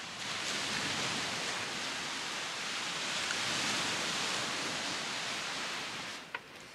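A steady, even rushing noise, which drops off suddenly about six seconds in, followed by a short high chirp.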